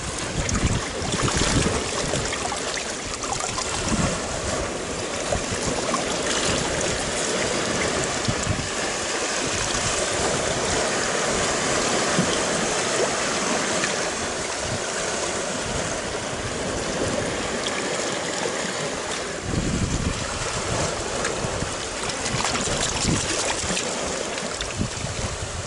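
Sea water washing and trickling over shoreline rocks, a steady rushing sound.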